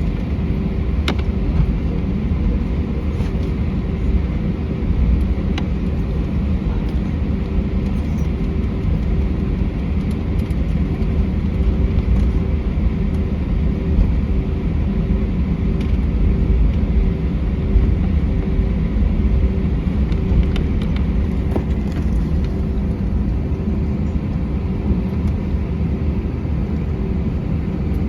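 Airliner cabin noise on an Airbus A320 with IAE V2500 engines: a steady low rumble with a constant hum over it and a few light clicks and rattles. The engine sound holds level rather than building.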